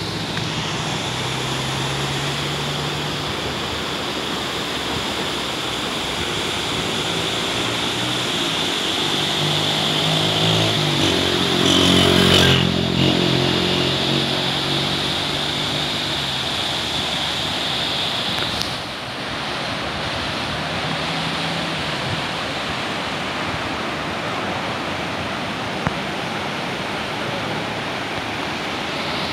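Fast, muddy mountain river rushing below a bridge: a steady, loud roar of water. A motor vehicle's engine swells and passes, loudest about twelve seconds in. A thin high whine runs over the water until about two-thirds of the way through.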